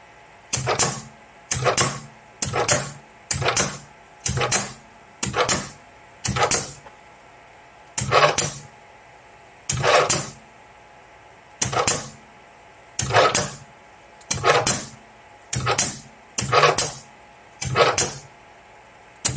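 Homemade 8-position CNC lathe turret tool changer indexing about fifteen times, each change a short burst of air hiss and mechanical clunking as the pneumatic piston unlocks the Hirth coupling, the turret turns and the coupling locks again. The changes come about a second apart at first, spread to about two seconds apart in the middle, then quicken again near the end.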